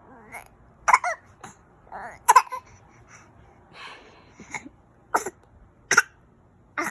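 A baby fake-coughing: about six short, sharp coughs spread a second or so apart, with soft little vocal sounds between them.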